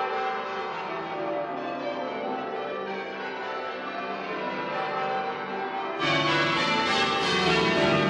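Church tower bells ringing changes, many bell tones overlapping. About six seconds in, the ringing turns abruptly louder and brighter.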